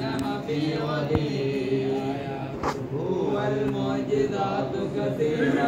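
Group of men's voices chanting together in long, held tones, with a few faint clicks.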